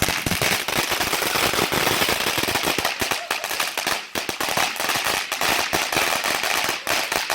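Consumer firework ending in a rapid, unbroken string of loud cracks and bangs like a string of firecrackers, starting suddenly.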